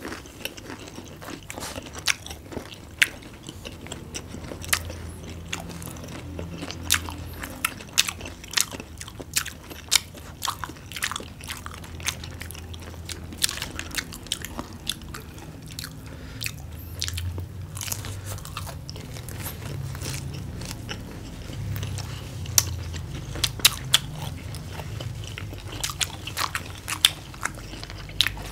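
Two people biting and chewing crisp battered fried chicken and battered onion and pepper pieces: irregular sharp crunches, at times several in a second, over a low steady chewing sound.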